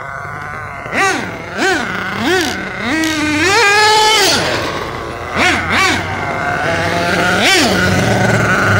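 Nitro engine of a Losi 8ight-T 1/8-scale RC truggy revving in short throttle bursts. Its pitch climbs and drops back about seven times, with one longer held rev near the middle, and it settles to a steady idle between bursts.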